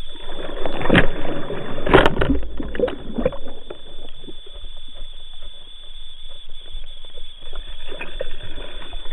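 Muffled water sloshing and gurgling around a small boat, with two sharp knocks about one and two seconds in and a short run of clatters just after, then a quieter wash of water.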